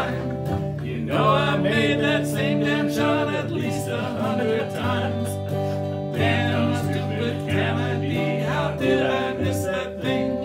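Piano and guitars playing a country-style song together, with men's voices singing along in places.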